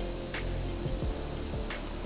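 Steady, high-pitched chorus of crickets or similar insects in the woods at dusk, with two faint clicks, one about a third of a second in and one near the end.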